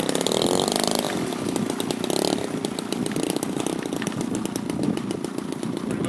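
The DLE 20cc single-cylinder two-stroke gas engine of a large RC model plane running, its pitch shifting during the first second and again at about two seconds as the throttle changes.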